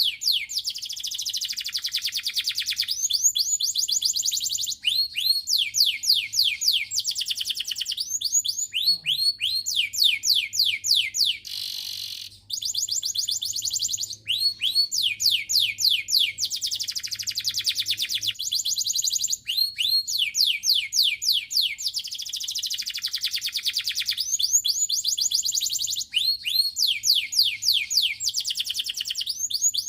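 Canary singing a continuous song of fast trills, rapid runs of short downward-sweeping notes broken by brief rolling phrases, with tiny pauses about twelve and fourteen seconds in.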